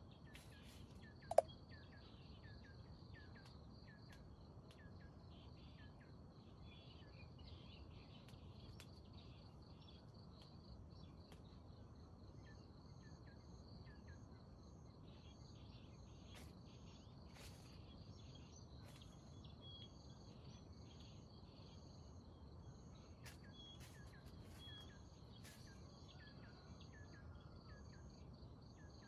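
Faint rural ambience: a steady high insect drone with a row of short, evenly repeating cricket-like pulses over it, and scattered small bird chirps. A single sharp click sounds about a second and a half in.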